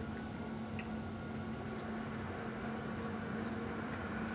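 Quiet eating sounds, faint small clicks and squishes of chewing and of fingers picking at food in a takeout container, over a steady low hum.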